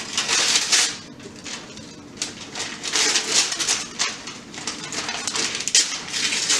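Gift wrapping paper being torn off a present by hand, in a series of separate rips and crinkles.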